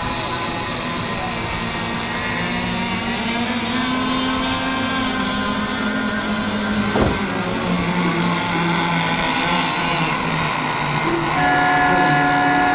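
Several radio-controlled race boats' small engines running together, their pitches holding and shifting as they race. A sharp click comes about seven seconds in, and near the end one engine becomes louder and steadier.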